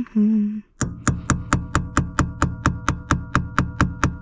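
A hammer rains quick, even blows on a headless shear bolt of an Audi steering/ignition lock, about four to five a second, each with a metallic ring. The bolt is stubborn and will not budge. Before the blows start, a short wavering pitched sound comes in the first half-second.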